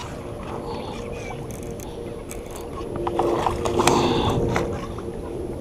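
Hooked bass thrashing and splashing at the water's surface beside the boat, loudest about three to four and a half seconds in, over a steady low hum.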